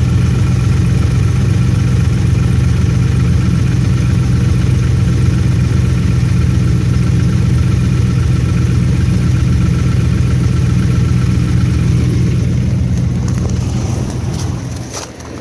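Dodge Ram's 5.7 Hemi V8 idling steadily on a cold start in freezing weather, with a light knock the owner takes for benign piston slap. Near the end the engine sound fades and wind noise takes over.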